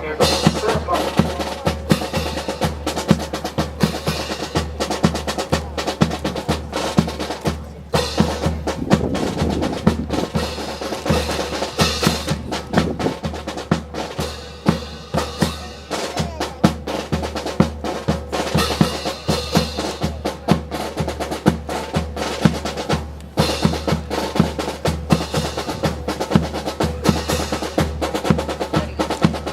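Military band drum section playing a steady marching cadence: rapid snare drum strikes and rolls over bass drum beats.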